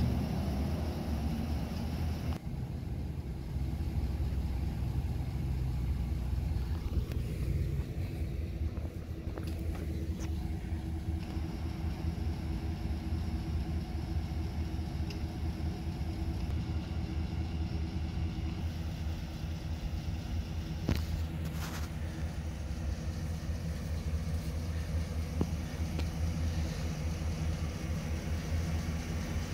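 2015 Chevrolet Silverado 2500HD's 6.0-litre gasoline V8 idling steadily, a low rumble.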